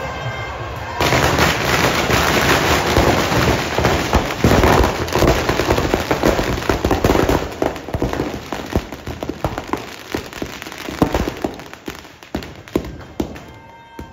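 Firecrackers packed into a burning Ravan effigy going off. About a second in, a dense, continuous crackle of rapid bangs starts, then thins to scattered single bangs toward the end.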